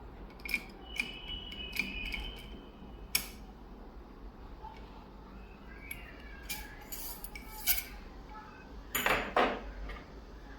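Small metal clicks and clinks of a lock-decoding tool being worked in a lock, some with a brief ringing; a louder cluster of clicks about nine seconds in.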